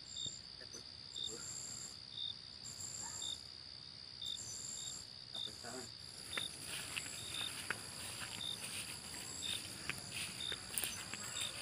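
Evening insect chorus: a steady high-pitched drone with short chirps repeating about once a second. From about six seconds in, scattered crackling clicks as someone walks through grass.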